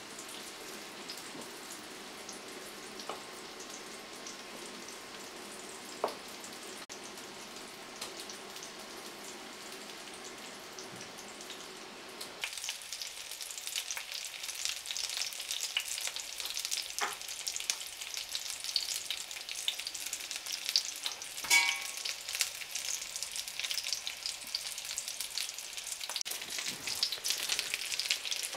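Breaded schnitzel frying in a pan, sizzling and crackling. The sizzle turns much louder and busier about twelve seconds in. A few light clicks are scattered through, and one ringing clink comes about two-thirds of the way through.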